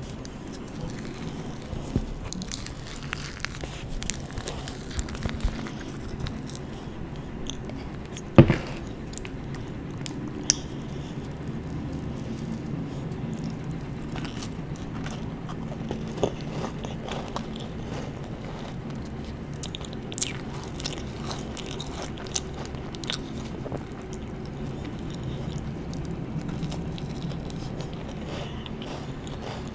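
Close-miked biting and chewing of a frosted sugar cookie topped with marshmallow fluff, with many small clicks and crunches. A single sharp knock stands out about eight seconds in.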